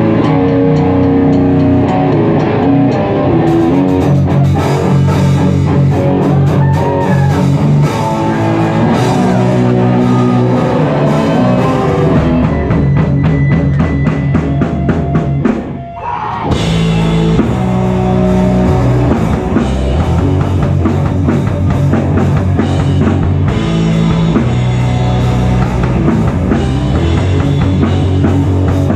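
Live rock band playing loudly: electric guitar and drum kit, with fast, dense drumming. About sixteen seconds in the band drops out for a moment, then comes back in.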